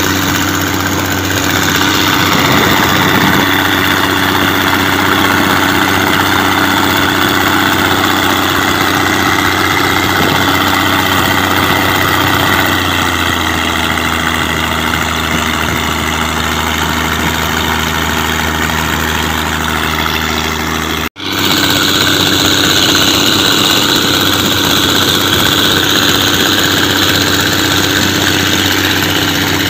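Mitsubishi 6D16 inline-six diesel engine running steadily with a constant drone, easing slightly lower in pitch partway through. The sound cuts out for a split second about two-thirds of the way in, then resumes.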